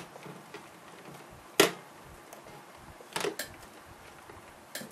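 Small paint bottles being handled on a workbench: five sharp clicks and knocks of glass or plastic against the desk and each other, the loudest about one and a half seconds in and two close together past the three-second mark.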